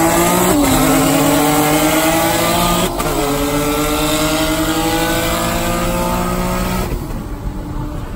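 Single-turbo (64 mm) Nissan 370Z's 3.7-litre V6 accelerating hard at full throttle, heard from inside the car. The engine note climbs steadily, drops at upshifts about half a second and three seconds in, and the engine backs off about seven seconds in.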